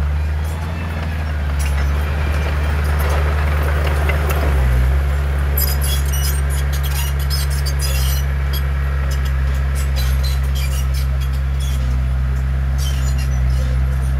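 Heavy diesel engine of earthmoving machinery running steadily under load, with a rushing noise a few seconds in and metallic clinking and rattling from about halfway on.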